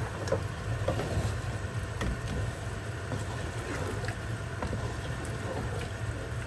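A wooden spoon stirring keema with tomatoes in a pot while it is fried down still wet, with soft scrapes and knocks against the pan now and then, over a steady low hum.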